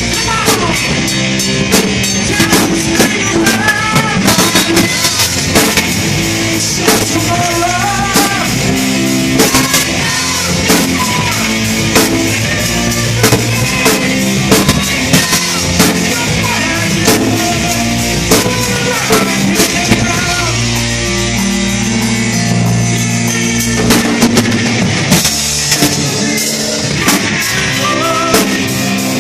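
Live band playing loud amplified funk: drum kit keeping a steady beat, with bass guitar and keyboards.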